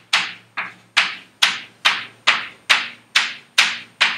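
Chalk tapping against a chalkboard: a steady run of sharp, evenly spaced taps, a little more than two a second, each with a short echo, as points are marked along a drawn curve.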